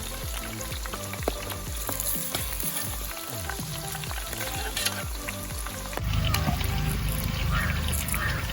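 Whole quail deep-frying in hot oil, a steady sizzle full of small crackles, getting louder about six seconds in.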